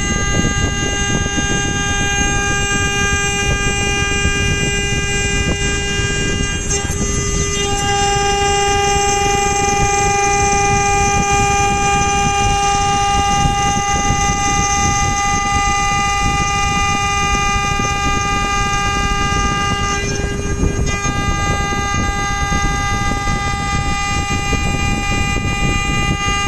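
CNC router spindle motor whining steadily at high speed while its end mill cuts a groove in an aluminium bar, with a rough cutting noise underneath. The pitch of the whine shifts slightly about 7 seconds in and shifts back near 20 seconds.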